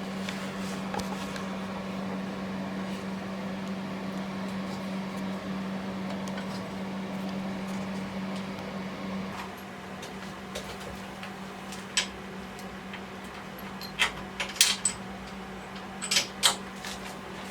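A steady low machine hum with a noisy running sound over it that drops away about halfway through. The hum carries on, and several sharp clicks and knocks come in the second half.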